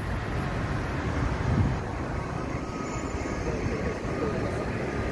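Articulated electric trolleybus passing close by in city traffic: a steady rush of tyres and road noise. A faint high steady tone comes in about halfway through.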